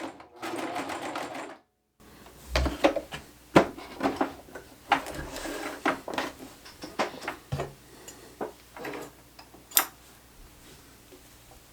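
Sewing machine running a zigzag stitch, stopping abruptly about two seconds in. Then come scattered separate clicks and knocks.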